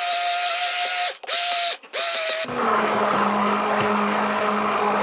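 Handheld immersion blender running in a pot of cooked beetroot, meat and potato, puréeing it into soup. It cuts out briefly twice, about one and two seconds in, then runs on at a much lower pitch.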